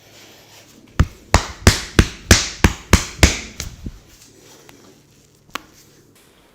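A rapid run of about nine sharp hand strikes on skin during a barber's percussive massage, about three a second, followed by one more sharp crack near the end.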